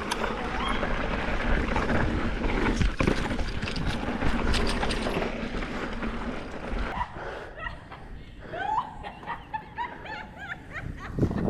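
Mountain bike descending a dirt trail: a rough rush of tyre and wind noise with rattles and knocks as the bike goes over bumps. It eases after about seven seconds, and faint shouts come through.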